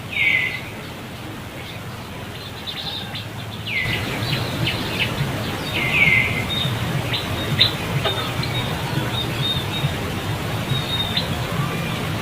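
High-pitched animal calls: three short, curving cries, near the start, about four seconds in and about six seconds in, with many quick high chirps from about four seconds on, over a steady low background noise.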